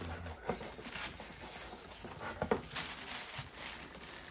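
Plastic wrapping rustling and cardboard and polystyrene foam scraping as a stiff-fitting unit is worked out of its tight packaging box, with a couple of soft knocks.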